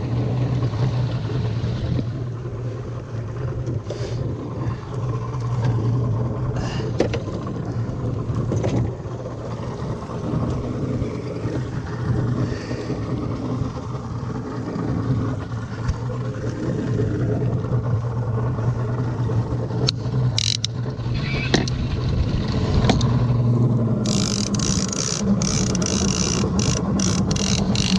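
Yamaha 175 outboard motor running steadily at slow trolling speed, with water wash around the hull. Scattered sharp clicks and knocks from handling the fishing reel and rod, more frequent near the end. The engine's pitch rises briefly about three quarters of the way through.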